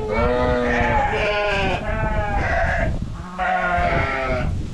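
Flock of Dorper sheep bleating, many voices overlapping one after another almost without a break.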